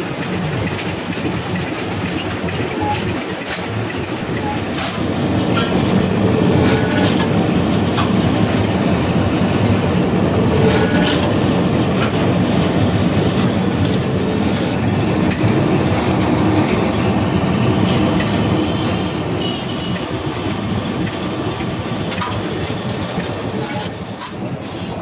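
Metal press running with a steady mechanical rumble and frequent irregular metallic clanks as steel rod ends are pressed flat on the die.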